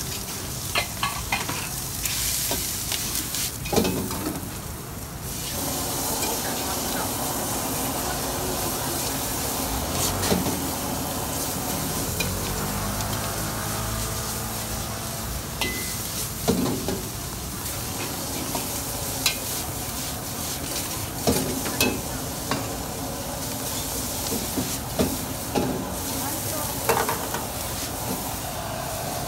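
Food sizzling in a hot wok during stir-frying, with a metal ladle scraping and stirring. Repeated sharp clacks of the ladle striking the wok are heard throughout.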